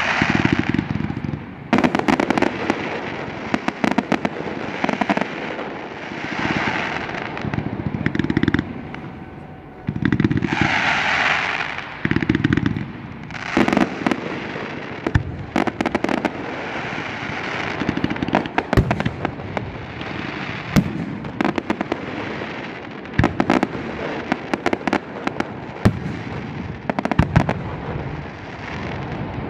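Fireworks display: repeated booms of aerial shells bursting, with dense runs of sharp cracks between them throughout.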